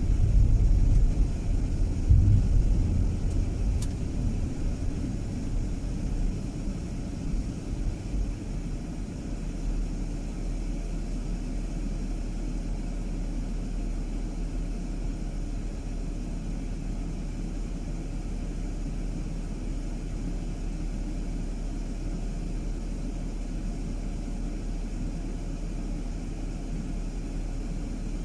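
Car driving: a steady low rumble of engine and road noise, louder and more uneven for the first several seconds, then settling to an even, quieter hum.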